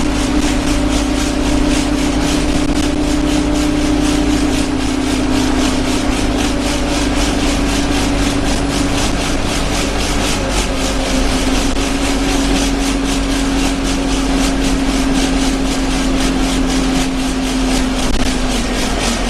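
Alexander Dennis Enviro 200 single-deck bus heard from inside the saloon while running: a loud, steady engine and drivetrain drone with a constant hum. Over it comes a fast, even rattle of the bodywork vibrating.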